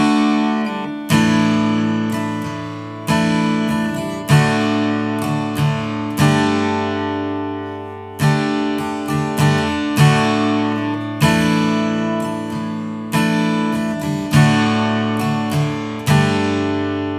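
Acoustic guitar strumming chords in a steady rhythm: heavy accented strums about once a second with lighter up- and down-strokes between, each chord ringing and fading. It is a sixteenth-note strumming pattern over D, G and Asus4 chords.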